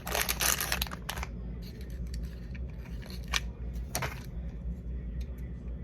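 Plastic packaging of a label tape cassette being torn open, crinkling loudly for about the first second, then quieter handling with a couple of sharp plastic clicks.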